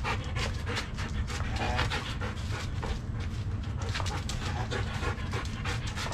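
A Belgian Malinois panting quickly and steadily while working in heel, several breaths a second, over a steady low hum.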